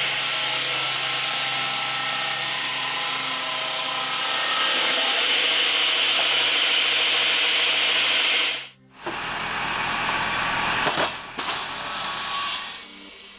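Power saw cutting through wood: a loud, steady whine of the blade in the cut that stops abruptly about nine seconds in. Then a different machine runs, with a low hum and a few sharp knocks.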